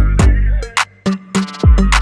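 Background hip-hop music: a drum-machine beat with deep kicks, sharp snare hits and a repeating melody.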